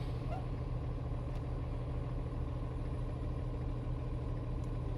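Vehicle engine idling with a steady low hum, heard from inside the vehicle while it stands stopped.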